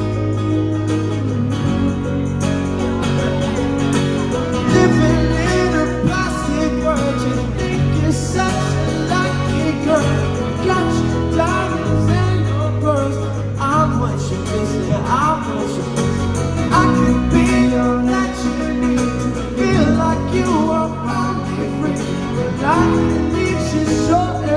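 Live pop-rock band playing amplified, with guitar over steady bass notes and some singing.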